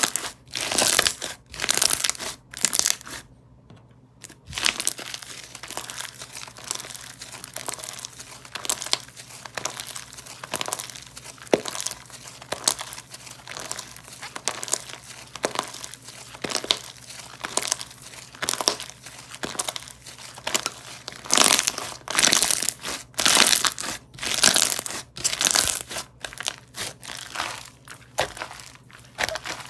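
Slime being squeezed and pressed by hand, giving crackly, crinkling bursts in repeated presses, louder bunches about 21 to 27 seconds in.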